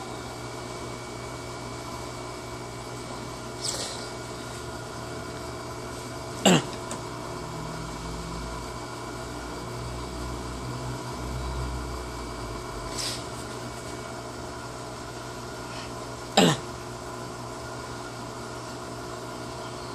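Electrolux LT15F washing machine running with a steady hum, a low rumble swelling and fading in the middle. Two sharp clicks, about six seconds in and again ten seconds later, with fainter ticks between.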